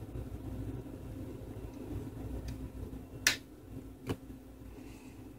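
Plastic retaining clips of an LG Viper phone's inner frame snapping loose as a plastic pry tool levers it off: one sharp click about three seconds in, then a smaller one a moment later, over a steady low hum.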